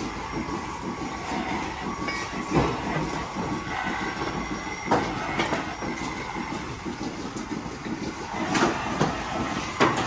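Milking parlour machinery running: a steady mechanical din with faint squeals, broken by several sharp knocks.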